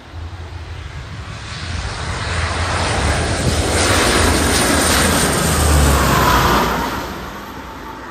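Fixed-wing aircraft flying past: a steady low engine hum and rushing noise build to a peak about six seconds in, with a falling pitch as it passes, then fade.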